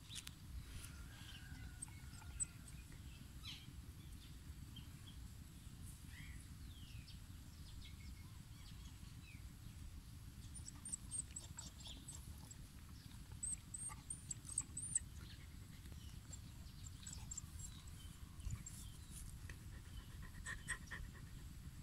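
A dog panting softly over a low steady rumble, with a few faint high chirps about halfway through.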